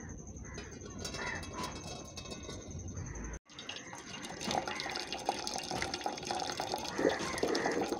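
Starch water drained from a pot of cooked foxtail millet, pouring in a thin stream and dripping into a steel bowl that already holds liquid. There is a brief break about three and a half seconds in.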